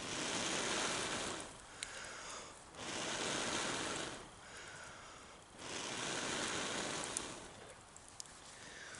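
Long breaths blown through a hollow stick onto a glowing ember to burn out the bowl of a wooden spoon: three steady rushing blows, each about a second and a half to two seconds, with short pauses for breath between them. A few faint clicks sound between the blows.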